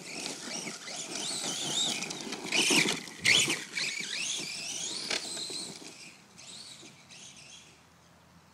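Electric RC truck's motors whining, rising and falling in pitch with the throttle. It is loudest about three seconds in, then fades away near the end.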